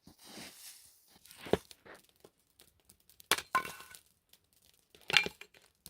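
A few sharp clinks and knocks, four in all and irregularly spaced, with some rustling between them.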